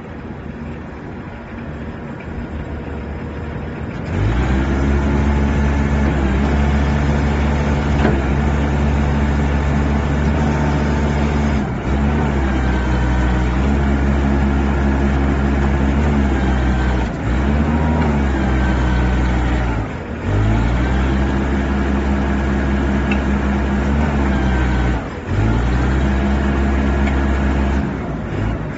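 Diesel forklift's Mitsubishi engine idling, then revved up sharply about four seconds in and held at high speed while the forks and mast are worked. The engine speed sags briefly and picks up again about five times.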